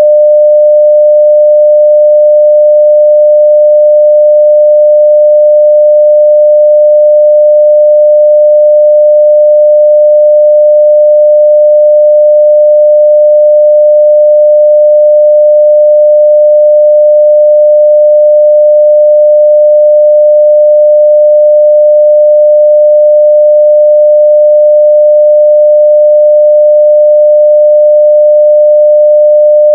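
A continuous 600 Hz sine-wave test tone at 0 dB, a single pure pitch held perfectly steady at full level.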